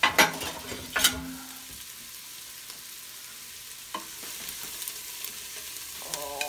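Chopped onion, celery and carrot sizzling in hot butter and oil in an Instant Pot's stainless inner pot on sauté. A few loud clatters in the first second as the vegetables go in, then a steady sizzle with a wooden spoon stirring and knocking against the pot from about four seconds in.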